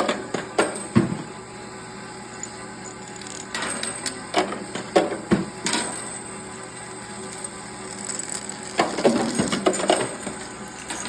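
Live cartridges clinking and clattering as they tumble through a roller-type ammunition sorter and drop out in irregular bursts of metallic clicks, busiest about halfway through and again near the end.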